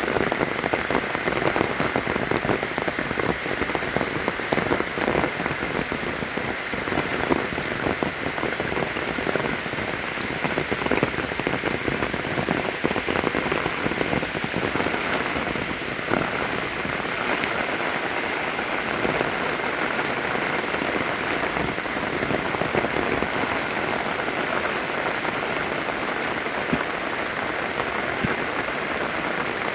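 Steady heavy rain falling, with many separate drop impacts close by over a dense hiss of rainfall, and a faint steady high tone underneath.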